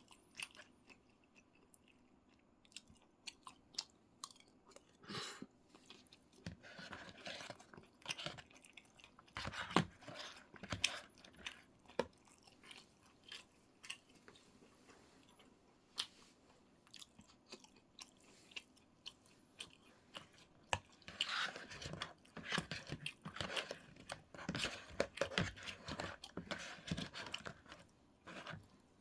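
Close-up chewing of food: irregular wet smacks, crunches and sharp mouth clicks, coming in clusters and thickest near the end.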